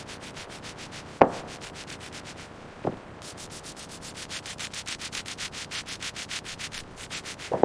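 Fast, even scraping or rubbing strokes, about five a second, growing louder in the second half, with a sharp knock about a second in and a lighter one near three seconds.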